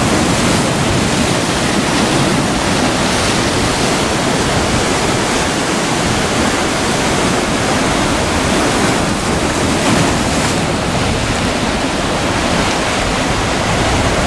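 Sea surf breaking and washing over rocks: a steady rush of water, with wind buffeting the microphone.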